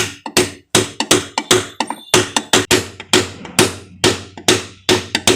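Hammer tapping a ball bearing into the gearbox casing of a Hero Pleasure Plus scooter: a quick, even run of light knocks, about four a second, each with a short metallic ring.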